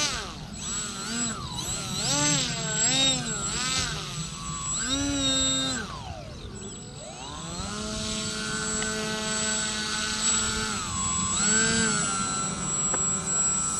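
Motor and propeller of a Polaris foam radio-control model plane, its throttle blipped up and down about once a second as it taxis on grass, then held at a steady pitch for a few seconds before one more rise and a drop.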